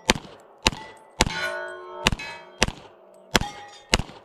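Handgun shots fired in quick succession at steel plates, seven in about four seconds. Most shots are followed by the short metallic clang and ring of a hit plate.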